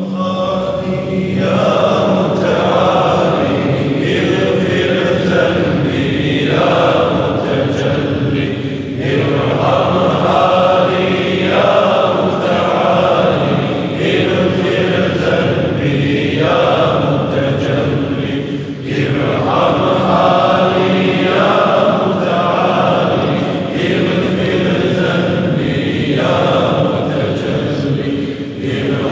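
Congregation of men chanting zikr in unison, a short devotional phrase repeated in a steady cycle about every two and a half seconds.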